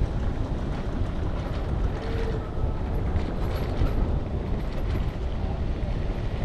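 Steady low rumble of a bicycle rolling along a brick-paved street, picked up by a camera mounted on the bike, with wind buffeting the microphone.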